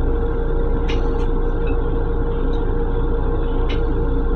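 Steady running noise of an M7 electric railcar heard inside its restroom: an even low rumble with a constant mid-pitched hum, and a few faint clicks or rattles about a second in and again near the end.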